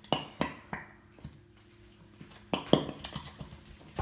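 Scattered light clicks and clinks of plastic containers, lids and bowls being handled, a few at first and then a quick cluster in the second half.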